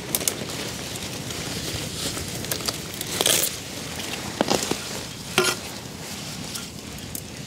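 Ginger plant leaves and stalks rustling and crackling while ginger rhizomes are dug out of the soil, with a few short, louder rustles and snaps around the middle.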